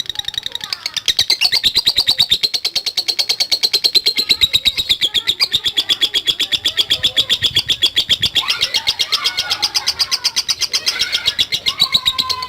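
Lovebird singing a long, unbroken chattering trill (ngekek panjang): high, rapid notes repeated about ten times a second without a pause.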